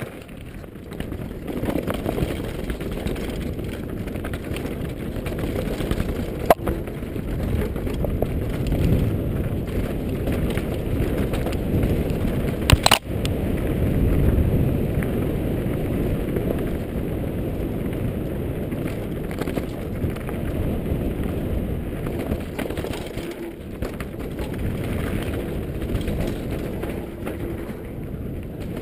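Giant Glory downhill mountain bike rattling and its tyres rumbling over a rough dirt trail at speed, picked up by a helmet-mounted GoPro. Two sharp knocks cut through, about six and thirteen seconds in.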